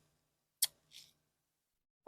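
A single sharp click a little over half a second in, then a short faint hiss like a breath; otherwise quiet.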